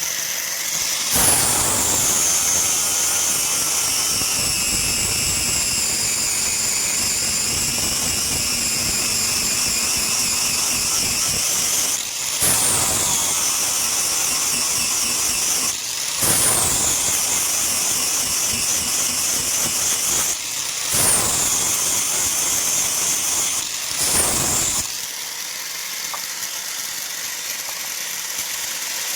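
Power grinder grinding steel, its high whine dropping in pitch each time the work is pressed to it, about five passes, easing off near the end.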